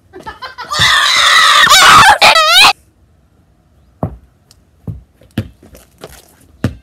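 A loud, shrill cry lasting about two seconds, wavering rapidly just before it cuts off, then a basketball bouncing on brick paving about five times.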